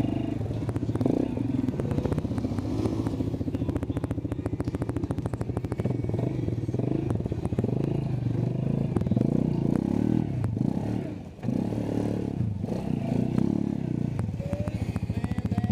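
ATV engine running and revving up and down, with a short drop in loudness about eleven seconds in before it picks up again.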